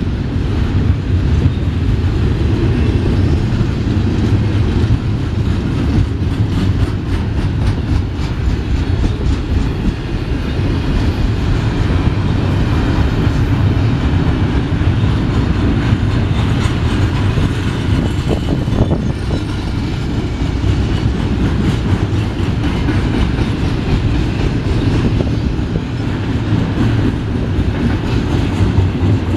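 Double-stack container train's well cars rolling past: a steady low rumble of steel wheels on rail, with repeated faint clicks.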